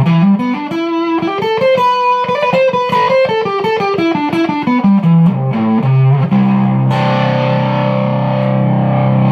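Electric guitar on the neck pickup played through a Ghost Effects Sounds of Today MK1 Tone Bender fuzz pedal. A run of picked single notes climbs and then descends, and then a fuzzy chord is struck about six seconds in and left to ring.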